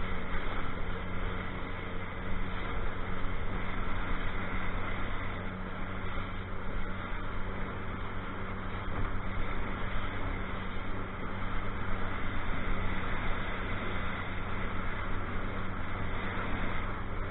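Motorboat running at a steady speed: a constant engine hum with water rushing and splashing along the hull.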